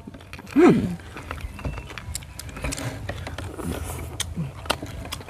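Chopsticks clicking lightly against ceramic rice bowls and plates at a shared meal, a scatter of small sharp clinks. A brief vocal sound comes about half a second in, with faint voices later.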